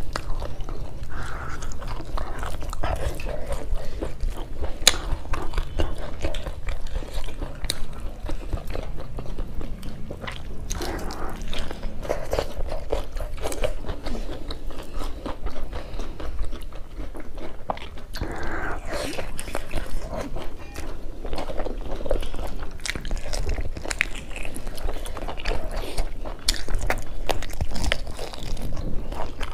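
Close-miked eating sounds of beef offal curry and rice eaten by hand: wet chewing and lip smacking with many irregular crisp clicks and crunches, over a steady low hum.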